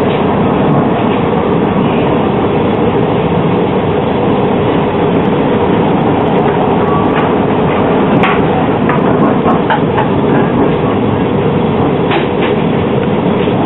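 Interior running noise of a low-floor articulated tram on the move: a steady rumble of wheels on rail and traction gear, with a few light clicks and rattles about eight and twelve seconds in.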